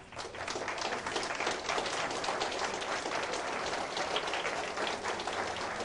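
Audience applauding: a dense patter of many hands clapping that builds up over the first second and then holds steady.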